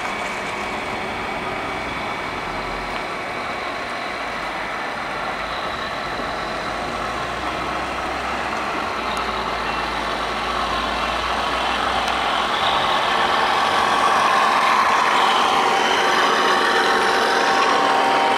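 Radio-controlled scale model trucks driving, with a truck-like engine sound that gets louder from about two-thirds of the way in as the models come up close.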